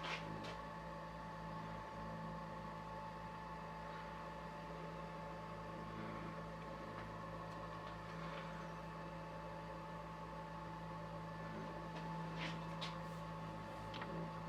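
Steady low hum of a small motor running the MDF rose engine lathe, with a faint high whine and a few soft clicks.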